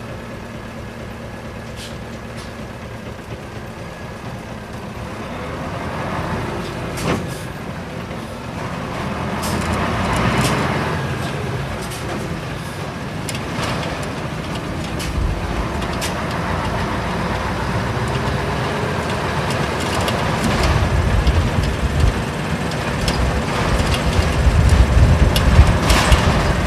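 Isuzu Cubic city bus's V8 diesel engine heard from inside the cabin, idling at first, then pulling away and running. The engine grows louder and deeper in the last few seconds.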